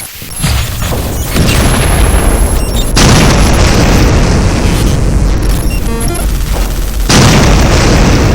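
Loud booming, rumbling noise effect standing for the earthquake striking. It jumps louder in steps: about half a second in, just past a second, at three seconds and again near seven seconds.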